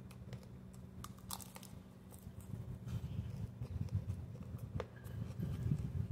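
Close-miked chewing and crunching of fresh lettuce salad, with small crisp clicks of the mouth. A low rumble builds from about halfway through and grows louder toward the end.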